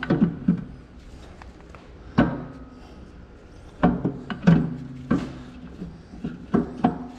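Several irregular heavy metal clunks and knocks as the Clark axle's differential carrier and ring gear are worked loose and shifted inside the cast axle housing, a snug fit; some knocks ring briefly.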